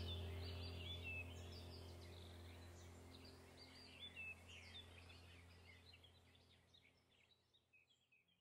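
Small birds chirping and twittering over a steady low hum, the whole sound fading out slowly to silence.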